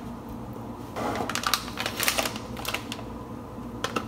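Rapid crinkling and clicking of a cardboard brownie mix box and kitchen containers being handled, busiest between about one and three seconds in, with a few more clicks near the end.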